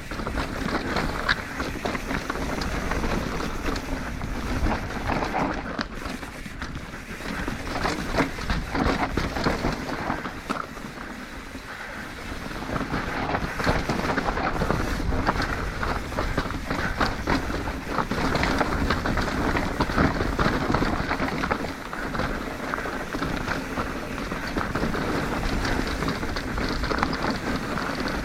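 Yeti SB150 full-suspension mountain bike being ridden fast over rough dirt trail: tyre roll and crunch with constant rattling and clatter from the bike, and wind on the microphone. It eases briefly about eleven seconds in.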